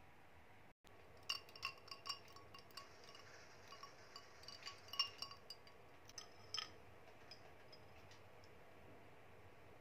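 Ice cubes clinking against a glass as an iced latte is stirred with a straw: a quick run of light clinks with a glassy ring, the loudest about five seconds in, stopping after about six and a half seconds.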